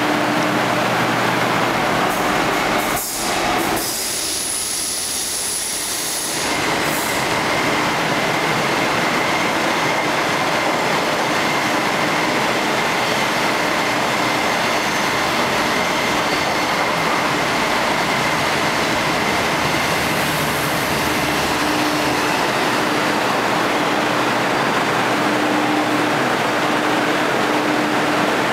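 DF11 diesel locomotive and 25Z passenger coaches running through the station: a loud, steady rolling rumble and rattle of wheels on the track. A thin, steady high whine joins in after about six seconds.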